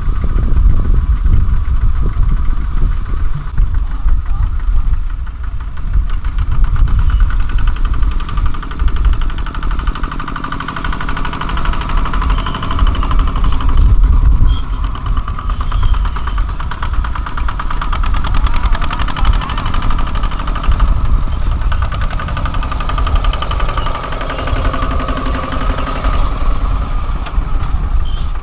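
Single-cylinder diesel engine of a two-wheel walking tractor running steadily under load with a fast, even knock, its wheels clogged with mud and straw.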